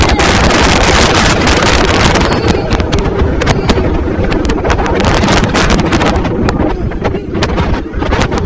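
Heavy wind rushing over a phone microphone on a roller coaster in motion, with the low rumble and rapid clatter of the coaster train running on its track. It is loudest in the first couple of seconds and eases slightly near the end.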